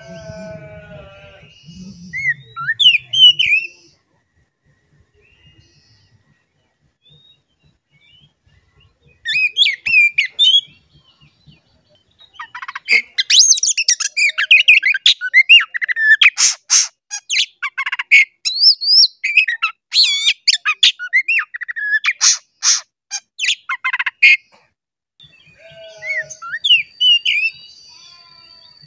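Oriental magpie-robin singing in bursts of varied whistles mixed with harsh, clicking notes: short phrases at the start and around ten seconds in, then a long, loud, unbroken run from about twelve to twenty-four seconds in, with softer phrases near the end.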